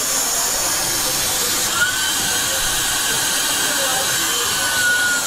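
Candy grabber vending machine running a play over a steady hiss. About two seconds in, a single high tone begins and is held for about three seconds, falling slightly in pitch.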